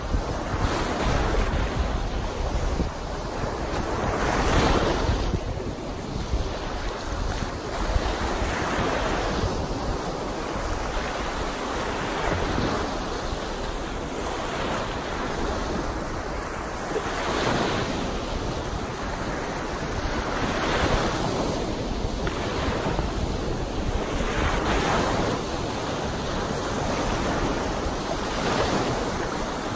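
Small wind-driven waves on Lake Superior breaking and washing up a sandy shore, the surf swelling about every three to four seconds over a continuous wash. Wind buffets the microphone with a low rumble.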